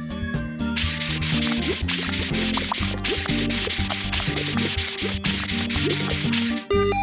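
Cartoon sound effect of a brush scrubbing in rapid, repeated strokes, starting about a second in and stopping just before the end, over background music.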